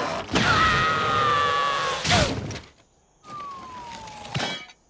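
Cartoon sound effects: a long whoosh with a falling, siren-like tone, a sharp hit about two seconds in, then a thin whistle gliding down and a click near the end.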